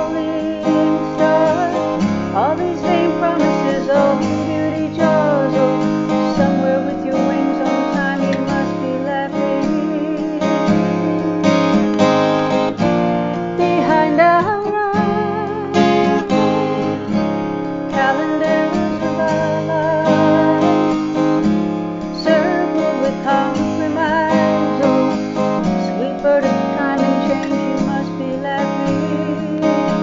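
A woman singing with vibrato while playing an acoustic guitar.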